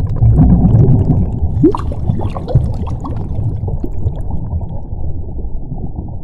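Muffled underwater bubbling sound effect: a low rumble with bubbles gurgling and rising. It is busiest in the first three seconds and eases off toward the end.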